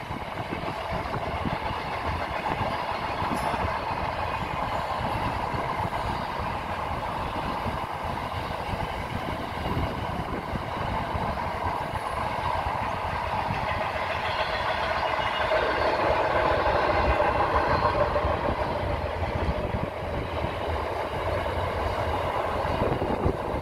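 Container freight train wagons rolling over a steel girder railway bridge: a steady rumble and clatter of wheels on the rails. A higher-pitched ringing tone swells louder about two-thirds of the way through, then eases.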